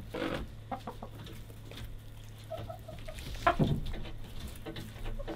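Chickens clucking softly while they feed on fish scraps, with a run of four short, low notes near the middle and a single thump about three and a half seconds in.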